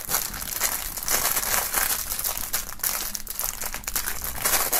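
Clear plastic wrapping crinkling and crackling as fingers peel it off a small case, in a continuous run of small crackles.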